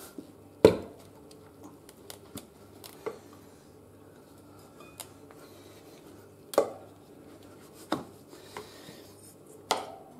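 Steel tyre levers clinking and knocking against a motorcycle's spoked rear rim as the tyre bead is levered off in small bites. Separate sharp metallic clicks, the loudest about half a second in, around six and a half seconds, and near the end.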